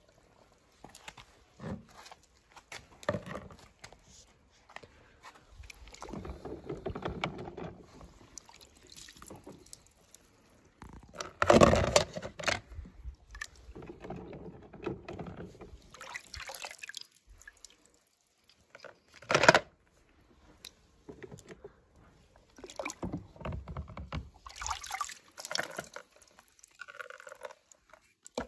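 Water sloshing and splashing in a plastic tub as small toy cars are pushed through it and dunked by hand, in irregular bursts with two louder sudden sounds, about twelve seconds in and near twenty seconds.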